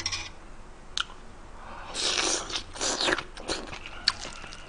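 Crunching and biting on pieces of spicy flower crab, the shell cracking in several loud bursts from about two to four seconds in, after two light clicks near the start.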